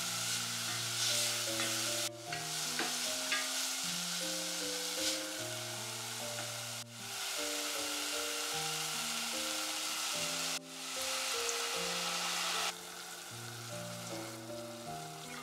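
Diced root vegetables and carrot sizzling as they fry in a stainless steel pot, stirred with a wooden spoon. The sizzle breaks off briefly a few times and is quieter for the last couple of seconds. Soft piano music plays underneath.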